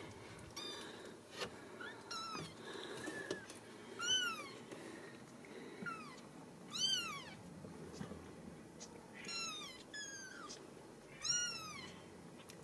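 Young Ragdoll kittens mewing repeatedly: short, high-pitched calls that rise and fall in pitch, about one every one to two seconds.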